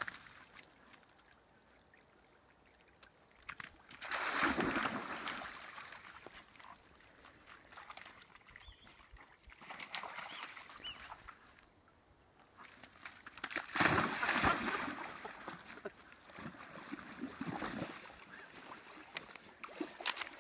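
Dogs, a springer spaniel and a golden retriever, splashing through a shallow stream and muddy water in several separate bursts, with quieter trickling water in between.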